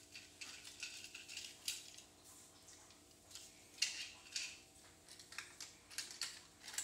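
Scattered light plastic clicks and taps of a Thomas Trackmaster toy engine being handled and set onto plastic toy train track, over a faint steady hum.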